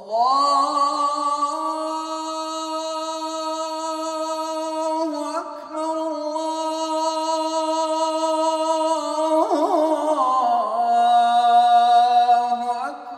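A man's unaccompanied voice chanting the adhan, the Islamic call to prayer: long held notes, the first lasting about five seconds, with a run of melismatic turns around ten seconds in before a lower held note.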